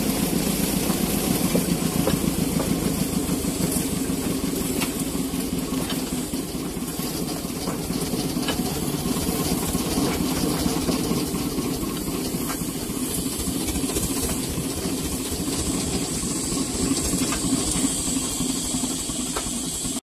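Engine idling with a steady low rumble, with a hiss above it.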